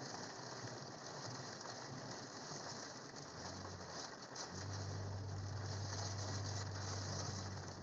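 Rain falling steadily on a vehicle, an even hiss of drops, with a low steady hum coming in about halfway through.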